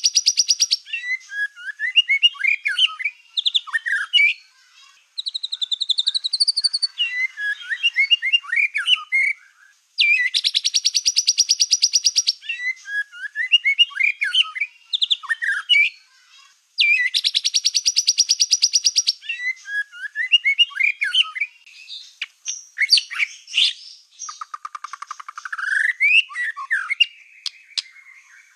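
White-rumped shama of the black-tailed (Medan) type in full song: three loud rapid buzzing trills of about two seconds each, at the start, about ten seconds in and about seventeen seconds in, each followed by a run of varied whistled and chattering notes, with a rising whistled glide near the end.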